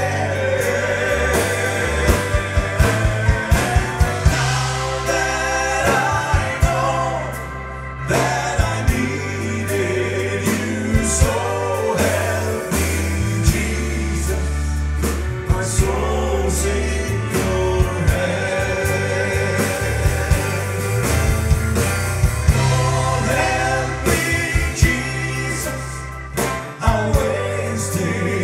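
A gospel song with a sung vocal over a band, with bass and drums keeping a steady beat.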